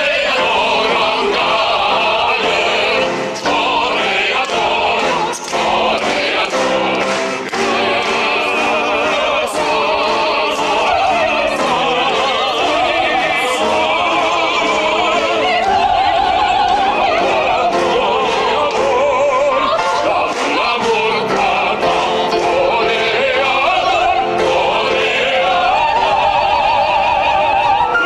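Operatic voices singing with wide vibrato over instrumental accompaniment, with sharp percussive hits through the first half.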